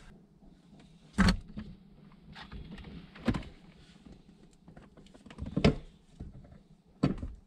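Hand-work noises at the metal shifter base plate in a VW GTI's centre console: four sharp clicks or knocks, about two seconds apart, with faint rustling and handling between them.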